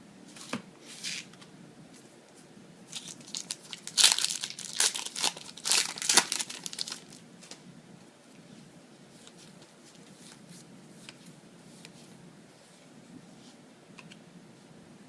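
Foil wrapper of a Yu-Gi-Oh booster pack being torn open and crinkled, a burst of crackling from about three to seven seconds in, with a few faint ticks of cards being handled around it.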